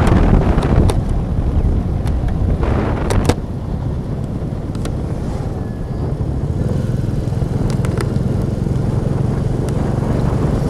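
Motorcycle engine running steadily while riding, with wind rushing over the microphone; the sound drops and steadies about three seconds in.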